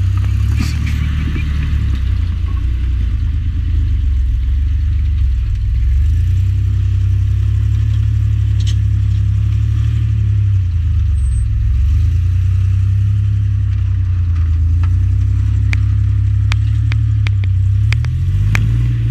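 Off-road vehicle's engine running at low revs while crawling up a rock ledge, its pitch rising and falling slightly with the throttle. A few sharp clicks come in the second half.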